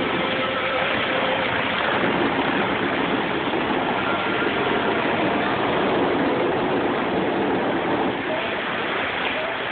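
Fountains of Bellagio water jets spraying high and falling back into the lake: a steady rush of water.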